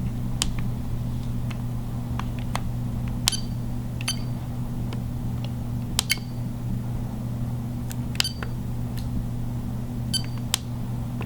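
A steady low electrical hum, with sharp clicks every second or two. Several of the clicks end in a brief high electronic beep.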